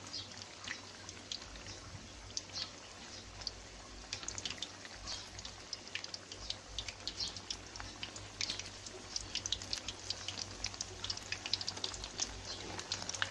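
Battered sweet potato and pumpkin slices deep-frying in hot oil, the oil sizzling with a constant patter of small pops and crackles that grow denser in the second half.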